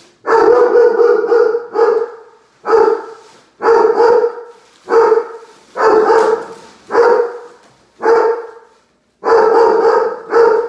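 A dog barking over and over, loud single barks about once a second, a few of them longer.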